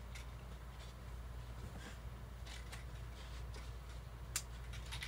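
Quiet room tone with a steady low hum. A few faint clicks, the clearest one about four and a half seconds in.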